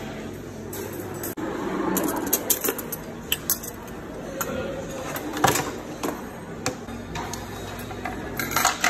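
Canteen servery clatter: scattered clinks and knocks of trays, crockery and serving utensils, with one sharper knock a little past halfway, over a murmur of voices.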